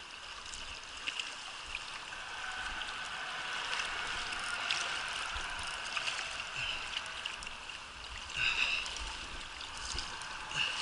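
Steady rush of river current flowing around a wading angler, with scattered small ticks and splashes from a hooked trout fighting at the surface. There is a brief louder burst about eight and a half seconds in.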